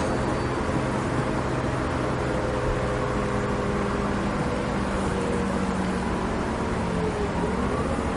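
City bus running, heard from inside the cabin: a steady engine rumble with a drone, and a whine that rises in pitch near the end.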